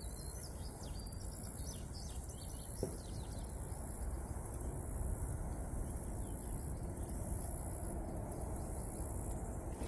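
Outdoor ambience: a steady high-pitched chorus of insects, with a bird chirping in quick short notes over the first couple of seconds, above a low steady background noise.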